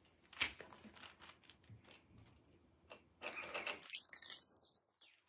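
Faint crinkling and rustling of small plastic wrappers being torn open and handled, with scattered light clicks and a busier burst of crinkling about three seconds in.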